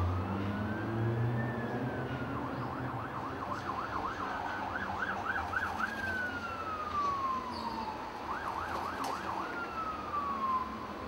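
Emergency vehicle siren passing in the street, switching between a slow rising and falling wail and a fast yelping warble several times. A low rumble of traffic lies under the first seconds.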